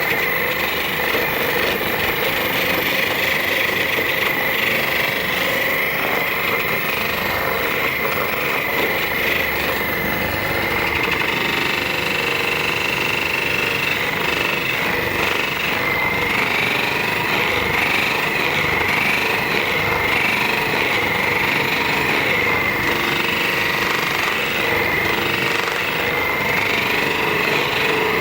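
Handheld percussion massage gun running, with a rapid buzzing and a motor whine that wavers up and down in pitch in the second half.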